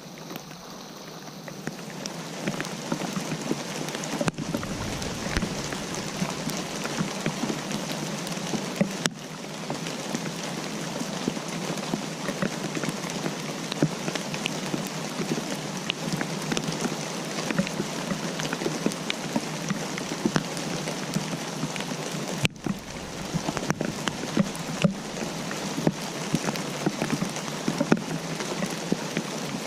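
Steady rainfall with individual drops pattering, broken by a few very short dropouts.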